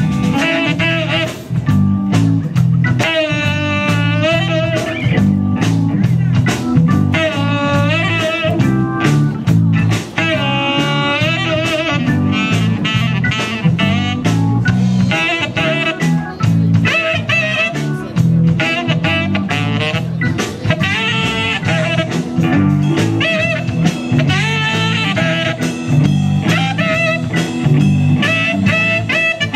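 Blues-style band music with no singing: an instrumental break in which a lead line of bending, wavering notes plays over guitar, bass and drum kit.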